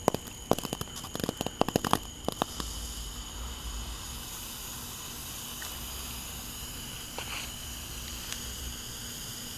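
A TNT Morning Glory sparkler-type firework crackling and spitting sparks in a quick irregular run of sharp cracks for about the first two seconds, then burning on with a steady hiss.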